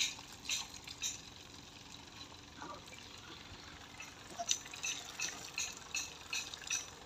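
Water splashing from a hose spraying a buffalo calf as it drinks from a bucket. The splashes come in short wet bursts about two or three a second, with a quieter stretch of a few seconds in the middle.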